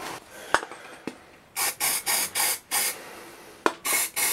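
Aerosol can of brake cleaner sprayed into a throttle body in short bursts: four quick hisses about a second and a half in, then one more near the end, to loosen dirt deposits. A few sharp clicks come in between.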